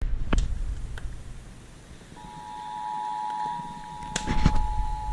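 Emergency Alert System attention signal, the steady two-tone beep of about 853 and 960 Hz, coming over an FM radio and starting about two seconds in. A few knocks come before it and again near the end.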